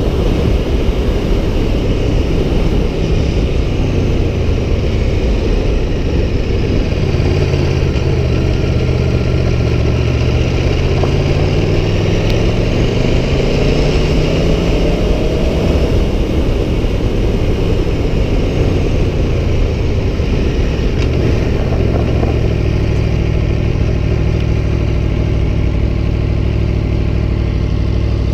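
Aprilia Tuono 1100 Factory's V4 engine running under way, over a steady rushing noise. The pitch rises as it accelerates from about eight seconds in, then drops back and holds steady.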